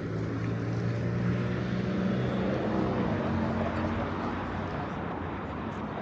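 Steady engine drone of a passing vehicle, with a low hum and its overtones over a rushing noise, fading after about four seconds.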